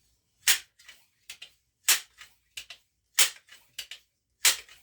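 Benjamin 710 air gun's rebuilt mechanism being worked on test: four sharp snaps about every 1.3 seconds, each followed by one or two lighter clicks.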